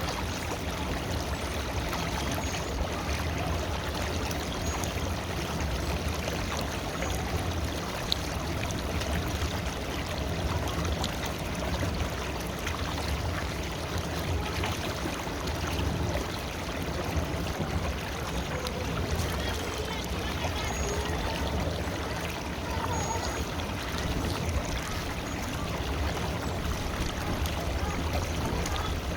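River water flowing steadily, an even, continuous rush.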